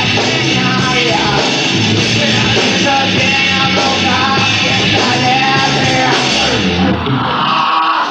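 Live rock band playing a song, with singing over the band; the upper range thins out near the end.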